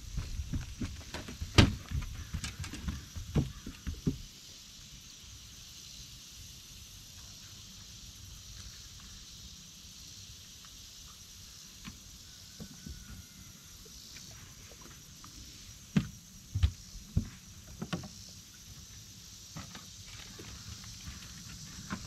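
Knocks and thumps on a bass boat's deck as a small bass is netted and unhooked: a cluster of sharp knocks in the first four seconds and another burst about two-thirds of the way through, over a faint steady hiss.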